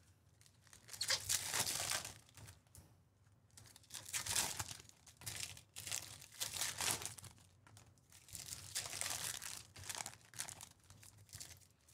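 Foil trading-card pack wrappers crinkling as packs are torn open by hand, in several separate bursts with short pauses between them.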